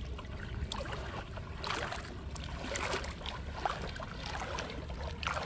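Water sloshing and swishing as a person wades through shallow river water, pushing a coracle along.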